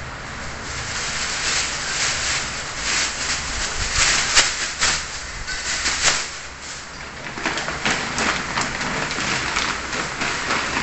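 Thin plastic bags crinkling and rustling as they are shaken open and handled, with many small sharp crackles. The loudest snap comes about four seconds in.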